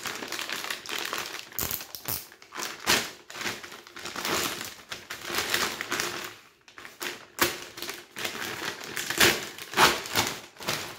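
Glossy plastic courier bag rustling and crinkling in irregular bursts as it is cut open with a utility knife and pulled apart to get the box out.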